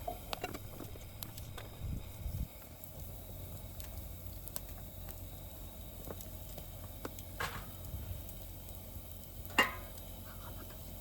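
Wood fire crackling in a fire-disc brazier: scattered small pops over a steady low rumble, with two sharper knocks, the louder one near the end.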